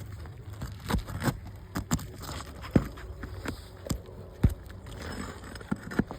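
Asphalt roof shingles being lifted and worked loose: irregular sharp clicks and crackling scrapes, about eight distinct snaps, as the worn, torn shingles are pried up.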